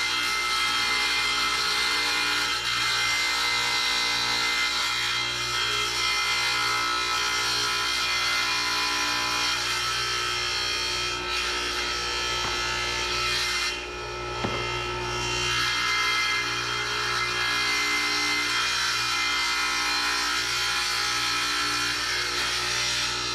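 Power tile saw running steadily and cutting natural stone mosaic tile, its sound easing briefly about fourteen seconds in.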